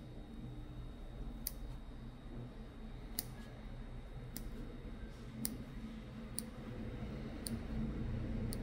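Nail nippers snipping a toenail: a string of sharp single clicks, roughly one a second, over a low steady hum.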